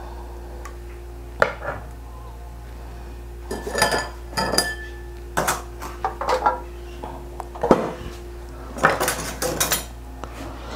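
A metal spoon clinking and knocking against a stainless steel pot in scattered clusters of knocks, as cooked daikon pieces are lifted out onto a cutting board.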